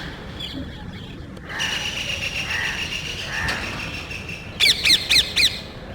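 A small group of parrots squawking, with fainter calls at first and then a quick run of several loud, harsh screeches near the end.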